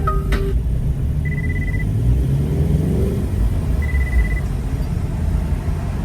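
Car cabin rumble from the engine and road while driving, with a brief rise in engine pitch around the middle. Two short high beeps sound about two and a half seconds apart.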